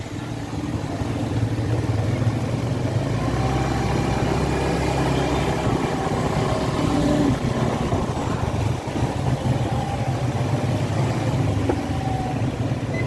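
Small motorcycle engine running steadily beneath the riders, with street traffic around it.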